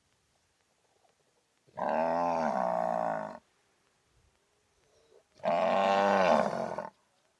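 Cow mooing: two calls of about a second and a half each, the first about two seconds in and the second about five and a half seconds in, each bending in pitch, with silence between.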